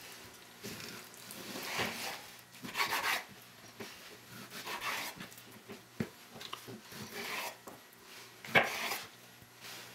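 Kitchen knife slicing raw pork on a bamboo cutting board: soft rasping strokes at irregular intervals of a second or so, with an occasional light tick of the blade on the wood.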